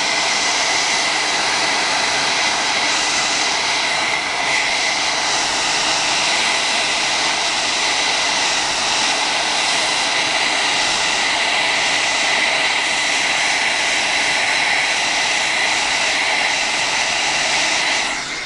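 Hair dryer running steadily on high: a loud, even rush of air with a steady high whine, blowing heat onto a phone to soften the adhesive under its glass.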